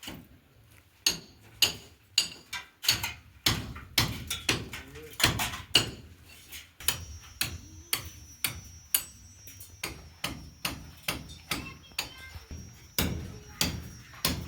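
A hand tool striking repeatedly in building work, a sharp knock about every half second. A faint high steady whine joins about halfway through.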